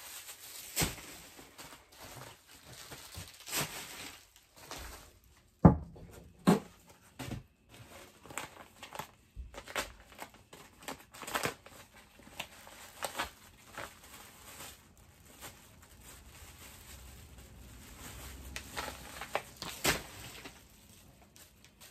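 Black plastic garbage bags and paper mailer envelopes rustling and crinkling as hands dig through them and open packages, with some tearing. Irregular crackles with a few sharp louder ones, the loudest about six seconds in.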